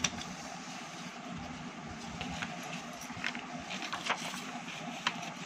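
Steady low room hum with a few light clicks and knocks from the paper and phone being handled.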